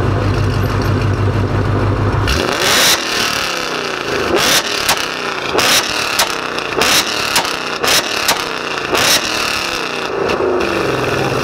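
Ford Mustang idling through a Borla exhaust, then revved hard against a two-step launch limiter: the exhaust fires about a dozen loud sharp bangs, roughly half a second to a second apart, over some seven seconds while the revs rise and fall, before dropping back to a steady idle near the end.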